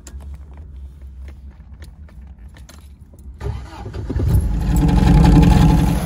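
Keys clicking in the ignition, then the 1973 MGB's 1.8-litre four-cylinder engine is cranked and starts about three and a half seconds in. It catches and runs loudly near the end.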